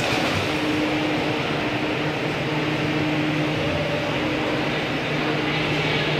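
Steady mechanical drone of an indoor pool hall's ventilation: an even rushing noise with a low hum running under it.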